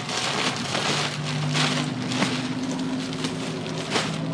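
A large black plastic bag holding a deflated inflatable boat, rustling and crinkling in repeated surges as it is shifted and lifted, over a steady low hum.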